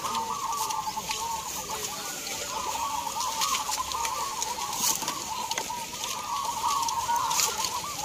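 Many caged zebra doves (perkutut) cooing at once: an overlapping chorus of short, repeated coos that runs on without a break.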